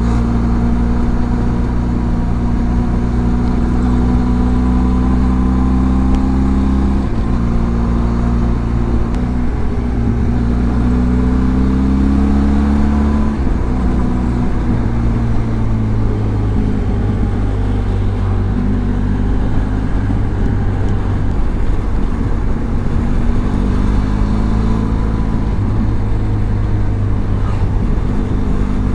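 Benelli TRK 502X's parallel-twin engine running while riding, its pitch stepping up and down with gear changes and throttle, with a rising rev about 11 to 13 seconds in.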